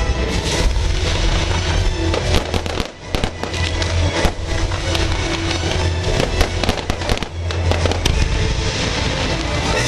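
Aerial fireworks bursting and crackling in quick succession over loud show music, with a brief lull about three seconds in.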